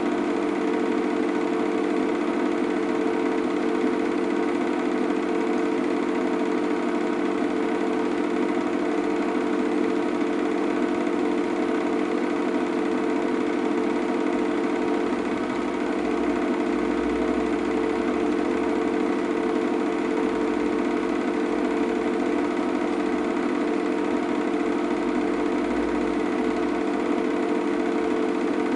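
Steady, unchanging mechanical whirr of a cine film projector running, with no change as the aircraft pass. It is the projector's own noise, not the sound of the helicopters.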